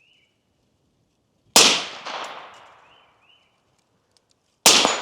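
Two single gunshots about three seconds apart, each followed by a long echo that dies away.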